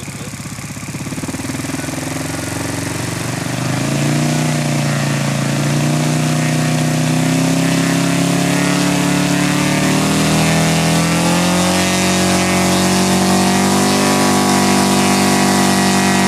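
Enya 240 VT four-stroke V-twin model aircraft engine idling just after starting, then opened up in steps to a high, steady run. The revs rise about a second and a half in, again about four seconds in, and once more about ten seconds in, where they hold.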